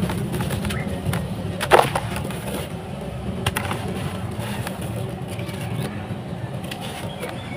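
Dry, dusty sand-cement chunks crumbled by hand: gritty crunching with scattered sharp cracks, the loudest a little under two seconds in.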